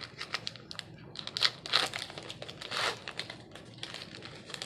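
Wrapper of a WWE trading-card pack crinkling and tearing as it is opened by hand, a run of sharp crackles with a few louder rustles between about one and three seconds in.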